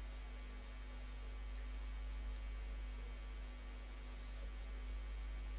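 Steady low electrical mains hum with faint background hiss.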